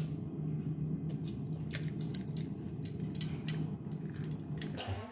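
An egg frying in hot oil in a wok: crackling and popping over a steady low hum, which stops just before the end.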